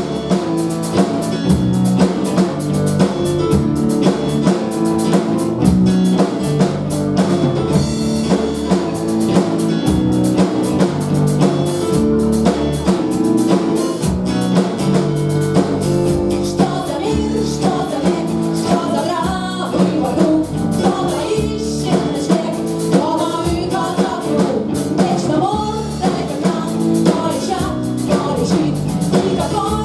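Rock band playing live: drum kit keeping a steady beat under guitar, with a singing voice that is clearest in the second half.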